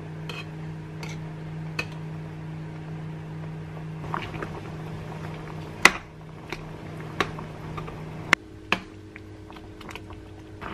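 Kitchen cooking sounds: scattered clinks and knocks of utensils and cookware over a steady low hum, which cuts off sharply with a click about eight seconds in.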